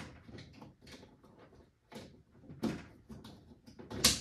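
Clicks and knocks of a boiler's condensate trap being refitted by hand, ending in a sharp snap: the trap turned a quarter turn to lock and its plastic locking clip snapped back on.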